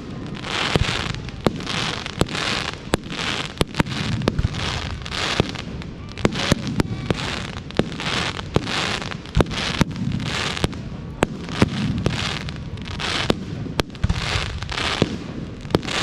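Fireworks going off: many sharp bangs, often several a second, over a crackling hiss that swells and fades in short bursts.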